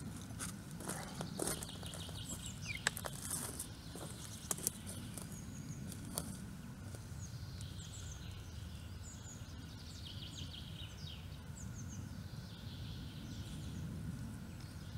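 Footsteps on dry twigs and pine litter, sharp snaps and crackles in the first six seconds that thin out as the walker moves off. Then small birds chirping in short, quick notes over a low wind rumble.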